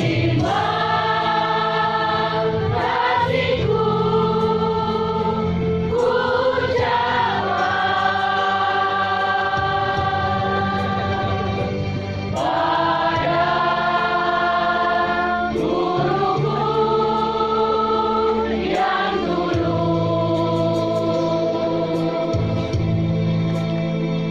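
A choir singing a slow song in long held notes, the phrase changing every three to six seconds.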